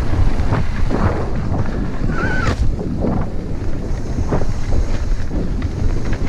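Heavy wind buffeting on an action-camera microphone during a fast downhill mountain-bike run, with the clatter and rattle of the bike over rough trail throughout and a short high squeal about two seconds in.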